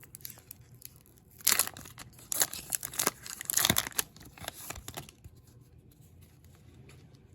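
Foil wrapper of a hockey card pack being torn open and crinkled: a run of sharp rips and crinkles lasting about three and a half seconds.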